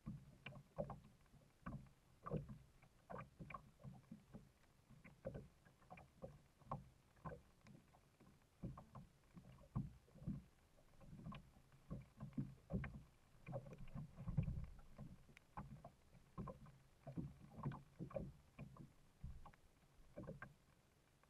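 Kayak paddle strokes dipping and pulling through the water, with small waves slapping the plastic hull: a steady run of soft splashes, about two a second.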